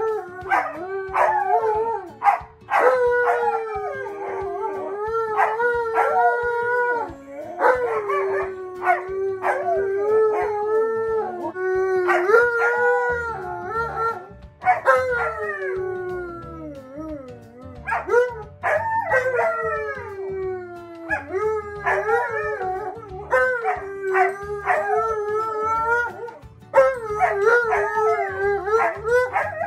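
An Alaskan Malamute and a white Siberian Husky howling together, long drawn-out howls that rise and fall in pitch and overlap one another, with brief breaks between rounds.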